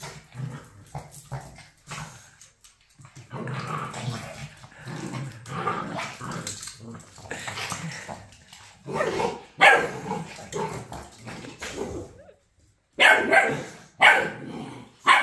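Two dogs play-fighting: several seconds of rough growling, then short, sharp barks, a few about nine seconds in and several more near the end.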